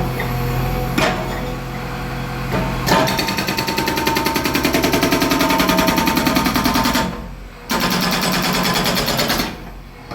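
Dynamite Duro DDB 680 hydraulic breaker hammering hard reinforced concrete, a rapid even run of blows for about four seconds before it stops, with the carrier machine's engine running underneath.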